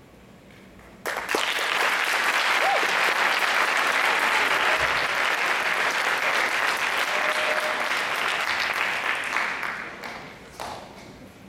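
Audience applauding, with a few cheers. It starts suddenly about a second in and fades away near the end.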